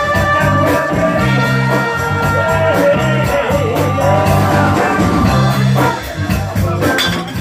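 Live band music with a repeating bass line and sustained instrument notes, and a voice singing over it in the middle.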